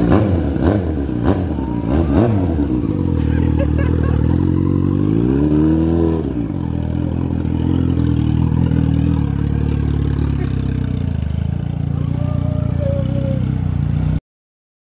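Sport motorcycle engine running close by. Its pitch swings up and down with the throttle in the first few seconds, then rises in one slower rev about six seconds in before settling back to a steady run. The sound cuts off suddenly near the end.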